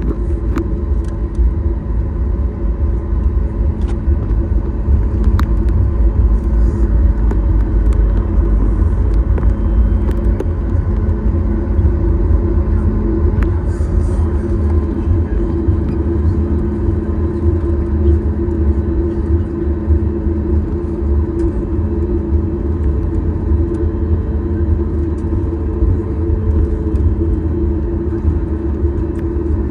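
Boeing 737-8 MAX jet engines (CFM LEAP-1B) running steadily, heard from inside the cabin as a loud, even low rumble with a constant hum.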